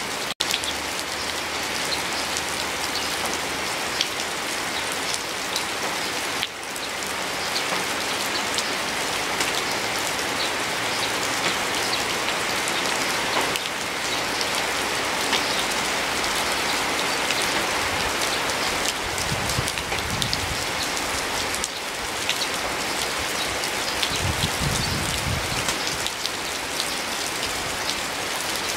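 Steady rain falling on leaves, with close drops ticking through the even hiss. A low rumble comes in twice in the second half.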